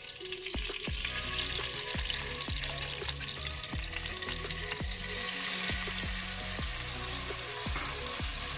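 Spoon stirring chicken nihari gravy as it thickens with flour-water in a kadhai: a steady sizzling, bubbling hiss with the spoon striking the pan about twice a second. The hiss grows louder about halfway through.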